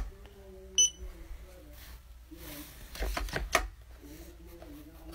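Clicks of a Ninebot kids' electric scooter's rear fender brake being pressed. A short, high electronic beep from the scooter about a second in signals that the light mode is changing, and two more knocks follow around three seconds in.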